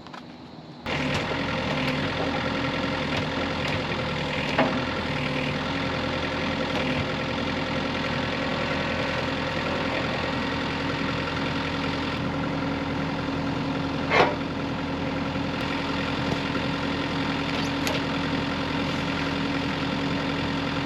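An engine running steadily at idle, starting abruptly about a second in, with a sharp knock about four and a half seconds in and a louder one about fourteen seconds in.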